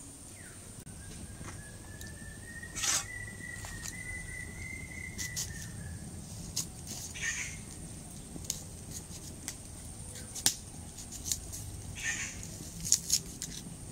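Short scraping strokes of a boti's curved blade as an onion or garlic is peeled and cut by hand, coming a few seconds apart. A long, thin whistling tone rises slightly and holds for about five seconds in the first half.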